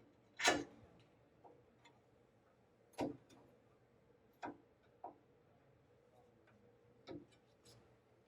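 A few separate sharp, light clicks and knocks, a second or more apart and uneven, as of small parts being handled on a machine frame.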